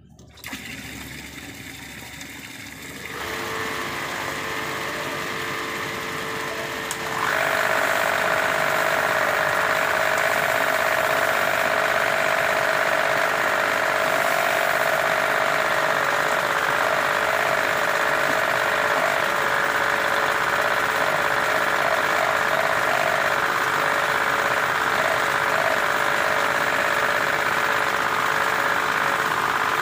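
Machine motor running steadily with a mechanical rattle, growing louder in two steps, about three seconds and seven seconds in.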